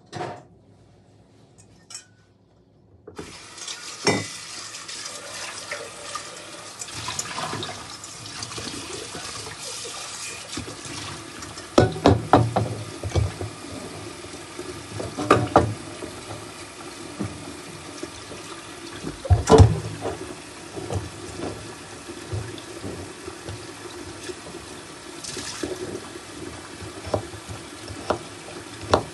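Kitchen tap water running steadily, starting about three seconds in, with several sharp knocks and clatters of kitchenware over it.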